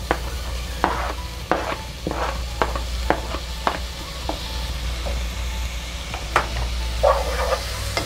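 Diced tomato scraped off a plastic cutting board into a pan of frying onions, with a wooden spoon knocking and scraping against the pan, about two knocks a second, while the onions sizzle in oil.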